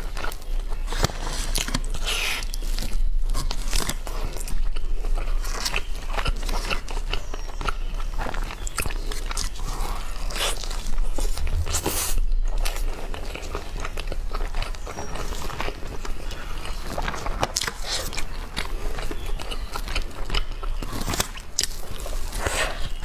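A person biting and chewing roast chicken legs with crisp golden skin, close to a clip-on microphone: a steady run of crunches and small mouth clicks.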